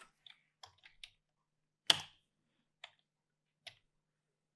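Computer keyboard keys and mouse buttons clicking, about nine separate clicks spread unevenly, with one louder click about two seconds in.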